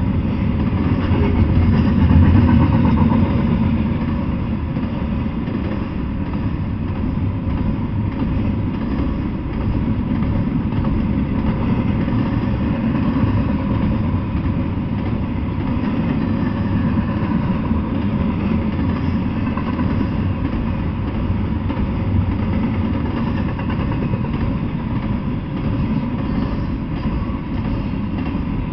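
Double-stack intermodal freight train cars rolling past, a steady rumble of steel wheels on the rails, a little louder about two seconds in.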